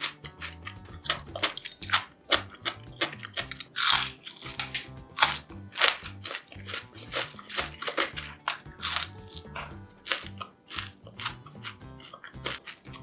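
Crisp, freshly fried tempura bitten and chewed close to the microphone: a rapid run of sharp crunches, loudest around the middle, with background music underneath.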